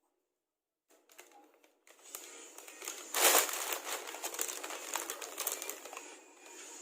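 Packaging crinkling and rustling as it is handled while an amplifier is unboxed, starting about two seconds in, with a loud burst about a second later.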